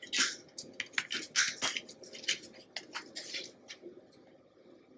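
Kitchen handling noises: a string of short taps, clicks and rustles as a glass olive oil bottle is moved and set down on the countertop. The noises die away in the last second or so.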